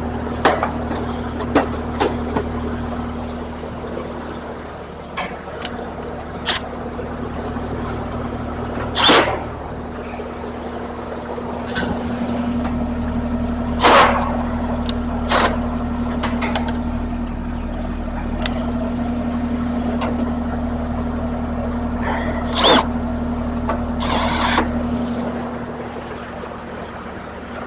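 Steady mechanical hum of a running outdoor air-conditioner unit, with a few sharp metallic clanks and knocks from panels and tools being handled.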